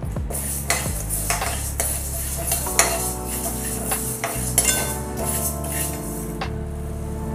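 A steel spoon stirring dry moong dal in a kadhai, scraping the pan and rattling the lentils again and again while they are dry-roasted.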